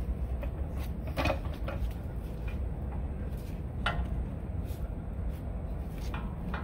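A few light clicks and knocks as a new outer tie rod end on a Toyota 4Runner is worked by hand into the steering knuckle, over a steady low rumble.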